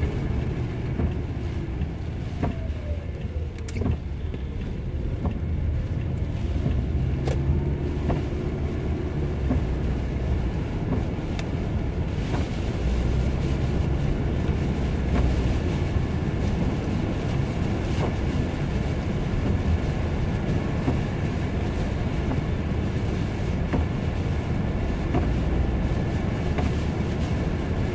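Road noise inside a moving car's cabin on a wet road: a steady low rumble of engine and tyres with a hiss from the wet pavement, and a few faint clicks.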